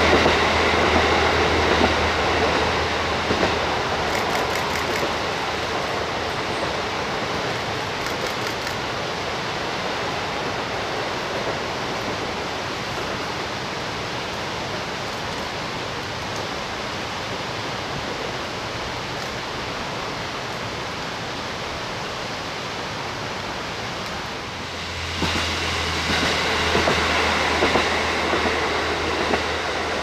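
Diesel train running on the rails: a continuous rumble of wheels on track, with a low engine drone that fades over the first few seconds and comes back louder about 25 seconds in.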